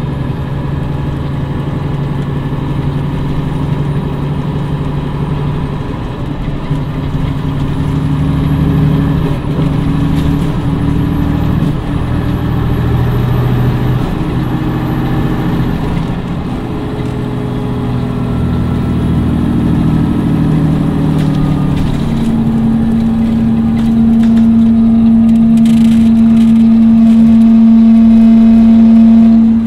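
Cummins ISM inline-six diesel of an MCI D4505 coach pulling under load, its pitch climbing and dropping back several times as the Allison automatic shifts up. Over the last several seconds it holds a steady, higher pitch and grows louder, then cuts off abruptly.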